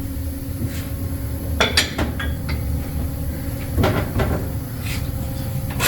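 Scattered metal knocks and clanks from the metal pump frame being handled and set in a bench vise, over a steady low hum.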